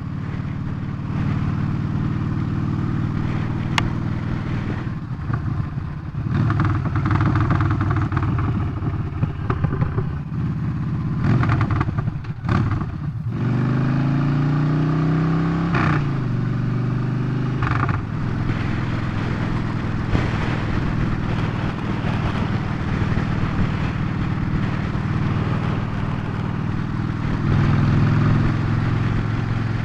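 Motorcycle engine running at road speed under steady wind rush. About halfway through the engine note drops briefly, then rises as the bike accelerates and shifts.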